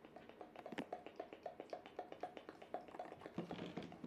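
A rapid run of light clicks or taps, about five a second.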